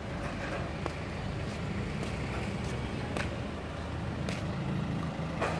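Steady low hum of a motor vehicle engine running, with a few sharp taps scattered through it.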